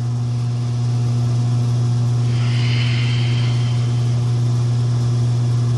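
A steady low hum with fainter overtones above it, unchanging throughout, with a soft hiss swelling briefly a little over two seconds in.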